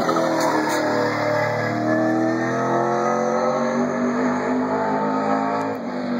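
Race car engine at full song, passing close by with its pitch dropping, then pulling away around the oval with the pitch climbing as it accelerates.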